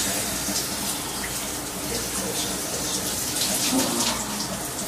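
Shower running: a steady spray of water falling in a small shower stall.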